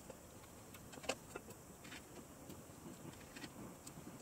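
Faint, scattered light clicks and taps of a thin aluminium plate being set onto a wooden case and small screws being handled, the sharpest click about a second in.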